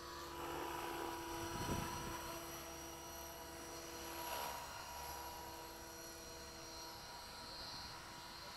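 Align T-Rex 500 radio-controlled helicopter in flight at a distance, its motor and rotors making a steady whine of several held tones that swells briefly about a second and a half in.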